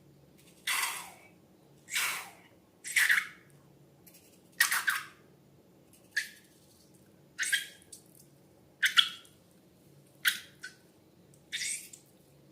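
About nine short, squishy bursts from slime and balloons being handled, coming roughly every second and a half, each dying away quickly.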